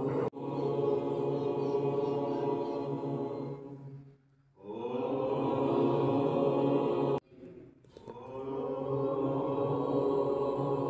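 Voices chanting a mantra in three long held notes, each lasting about three seconds with a short pause between them; the second note breaks off suddenly.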